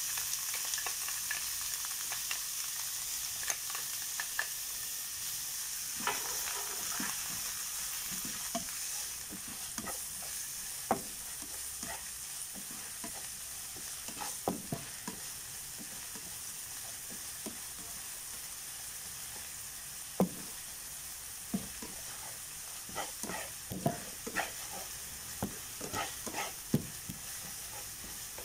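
Chopped onion sizzling in hot oil in a nonstick frying pan while a slotted plastic spatula stirs it, scraping and tapping against the pan now and then. The sizzle is strongest at first and eases after about nine seconds; the spatula taps come more often near the end.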